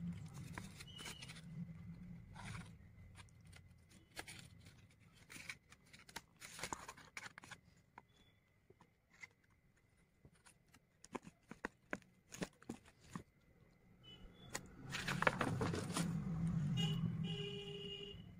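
Paper and card being handled: scattered small clicks and rustles, with a longer, louder rustle about fifteen seconds in.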